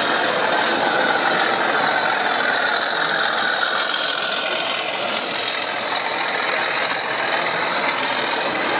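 O gauge model freight train running past behind a model diesel locomotive: a steady mechanical running noise of motor and wheels on track, with a faint tone that dips and rises slowly in pitch.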